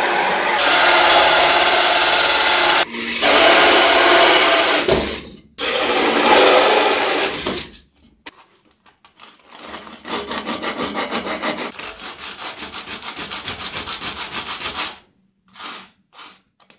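Cordless drill cutting through a wooden panel with a hole saw, in three spells of a few seconds each. A few light knocks follow, then the edge of the cut hole is sanded by hand in quick, even strokes, about four a second, with two more short strokes near the end.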